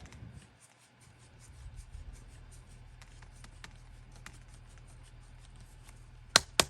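Hand reamer scraping the inside of a cut gas-line pipe end to bevel it, a faint scratching in a regular rhythm of about three strokes a second over a steady low hum. A few sharp clicks come near the end.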